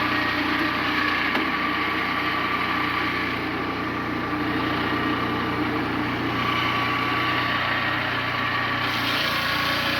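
Engine of a Turbosawmill circular sawmill running steadily.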